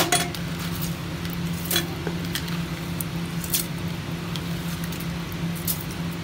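Soaked green chickpeas being scooped by hand out of a bowl of water and dropped into wet masala in a cooker, giving a few scattered soft squishes and clicks. A steady low hum runs underneath.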